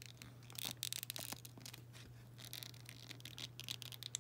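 Fingers working a ruffled fabric skirt onto a small plastic LOL Surprise doll: soft rustling and scratching in a few short spells, over a steady low hum.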